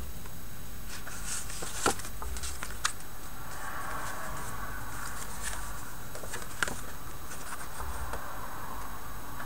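Paper craft cards and a clear plastic sleeve rustling and crinkling as they are handled, with a few sharp light taps. The plastic crinkle is clearest in the middle.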